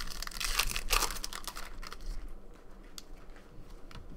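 Trading cards being handled and slid through the hands, a papery rustle that is densest for the first two seconds, then quieter with a few light clicks.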